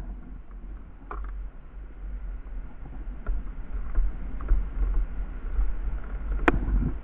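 Sit-on-top kayak drifting on open water, a low buffeting rumble on the microphone throughout, with a few light clicks and one sharp knock about six and a half seconds in.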